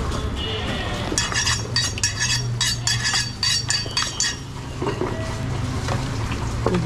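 Large aluminium basin clinking as chopped mutton pieces and bones are turned over by hand inside it: a quick run of about a dozen metallic clinks starting about a second in and stopping after about three seconds, over a steady low hum.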